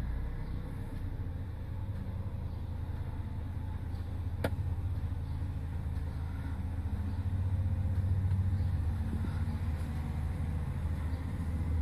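Steady low rumble of idling engines, heard from inside a truck cab. It swells a little about seven seconds in and eases again, with a single sharp click about four and a half seconds in.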